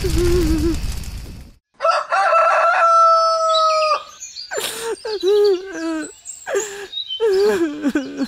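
A rooster crows once, ending in a long held note that stops abruptly about four seconds in, after a loud rumbling noise dies away at the start. Short, wavering bird-like calls follow.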